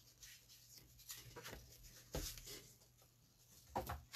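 Faint rustling and light knocks of card stock and die-cutting machine plates being picked up and laid down, with the clearest knocks about two seconds in and near the end.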